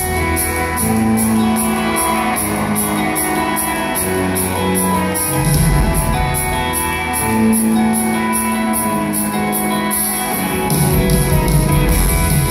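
Live rock band playing, with electric guitars, bass guitar, drums and keyboards, heard from the audience in a large hall. The band grows louder and fuller in the last two seconds.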